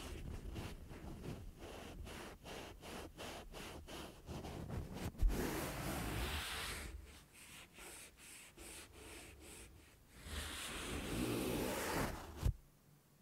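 A cotton ball rubbed and brushed against the metal mesh grille of a Røde NT-USB Mini microphone, heard right on the capsule. It starts as quick short strokes, about three a second, then turns into slower, longer rubs. There is a sharp bump about five seconds in and a smaller one near the end.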